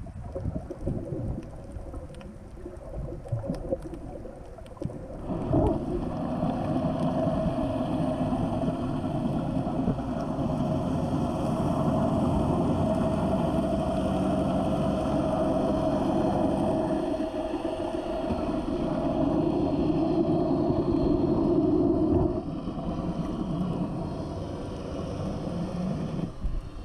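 Muffled underwater sound picked up by a submerged camera, with a steady engine drone from a boat's motor carried through the water. The drone comes in about five seconds in and eases off near the end.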